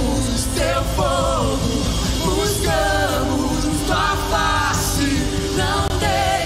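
Live worship band playing, with voices singing long, gliding held notes over sustained low chords.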